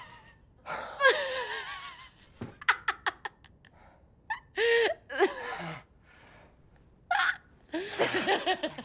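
People laughing in several separate bursts, with quiet pauses between them.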